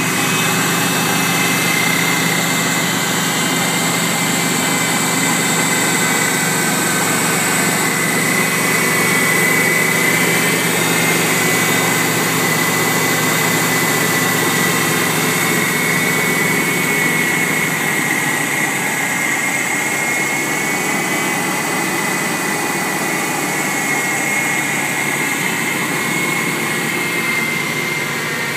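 A 1992 GMC Sierra pickup's engine idling steadily under the open hood, with a constant high whine over the running noise.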